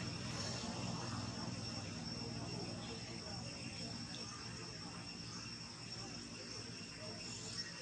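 Steady insect chorus, a continuous high-pitched drone of crickets or cicadas, over a faint outdoor background.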